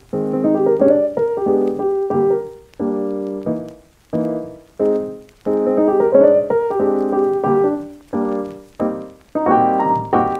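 Background piano music: chords and notes struck in short phrases, each fading before the next.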